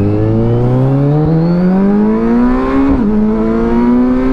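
Kawasaki Versys 1000 SE's four-cylinder engine through an Arrow exhaust, pulling under acceleration: the engine note climbs steadily, drops sharply about three seconds in at an upshift, then climbs again.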